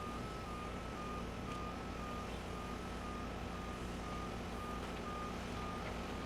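A vehicle's reversing alarm beeping about twice a second, one steady pitch, over the steady low hum of a running diesel engine.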